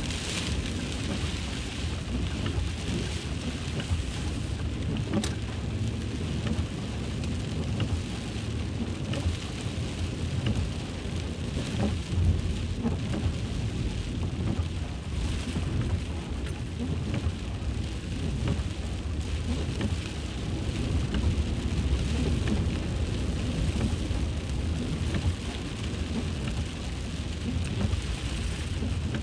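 Very heavy rain pouring down steadily, with scattered sharp drop hits close by and a deep continuous rumble underneath.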